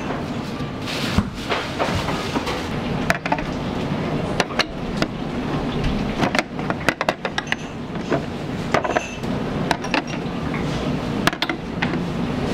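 Metal wok ladle and utensils clanking and knocking against a wok in irregular clusters, over a steady rush of kitchen burner and ventilation noise.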